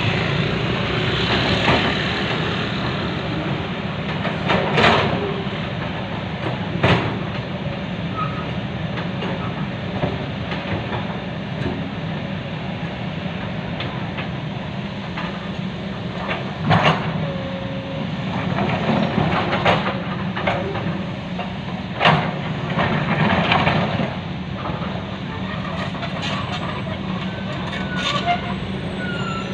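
Hydraulic excavator's diesel engine running steadily under work, with a handful of sharp metallic clanks as the bucket works the bank.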